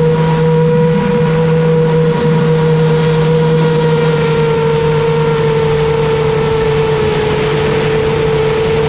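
A 10-inch FPV drone's motors and propellers running at a steady throttle, giving one held buzzing tone. The pitch drops slightly in the second half.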